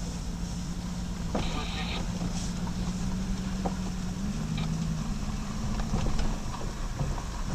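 Jeep Grand Cherokee WK2 driving along a road: steady engine and road noise with a low hum that steps up in pitch about four seconds in. A brief high tone sounds about a second and a half in.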